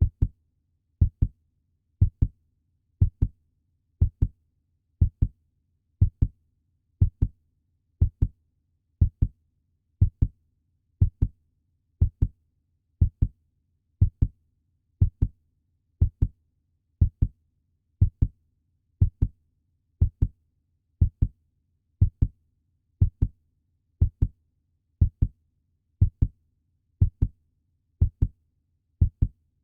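Puppy heartbeat sound effect: a steady lub-dub double beat, low in pitch, repeating about once a second over a faint low hum.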